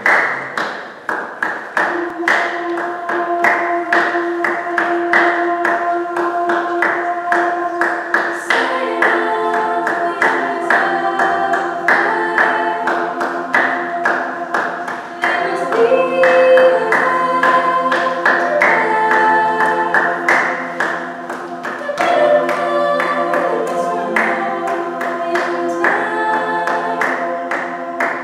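Mixed-voice a cappella group singing: a steady beat of sharp percussive clicks, about three a second, opens it, a held note enters after about two seconds, and more voices come in with sustained chords about eight seconds in.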